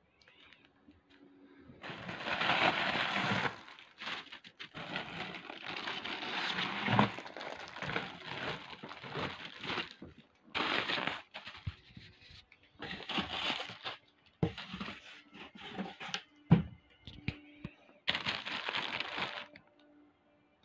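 Clear plastic bag and tissue paper crinkling and rustling as a mask wrapped in them is handled and unwrapped. The rustling comes in irregular bursts, with a few sharp cracks.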